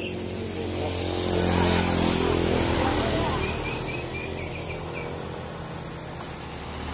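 Motor vehicle passing close by on the road, its engine rising to a peak about a second and a half in and then fading, over a steady low engine hum.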